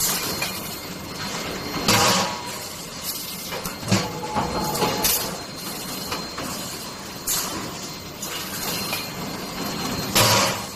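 Automatic hot forging press making bolt heads, running with steady machine noise and sharp metal-on-metal bangs every second or two as it strikes the hot stock. The loudest strikes come about two seconds in and near the end.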